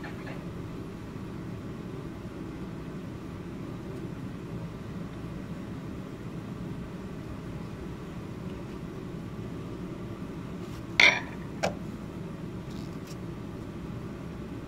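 Steady low background hum of room noise, with two brief sharp clinks about eleven seconds in, the first louder, a fraction of a second apart.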